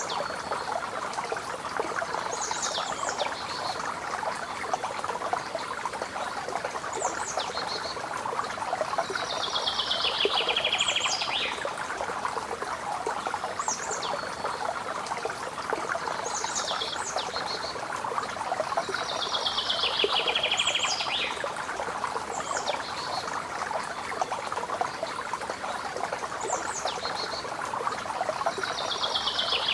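Steady splashing of fountain water, with birds singing over it: short high calls every second or two, and a longer descending trill about every ten seconds.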